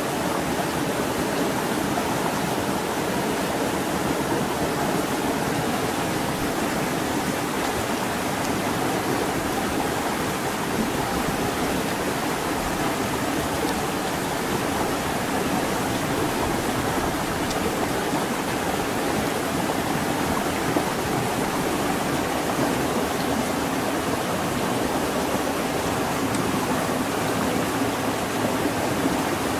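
Steady, even rush of running water, like a stream flowing over rocks.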